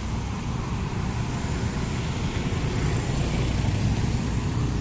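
City street traffic: motorbikes and cars driving past, a steady mix of small engines and tyre noise.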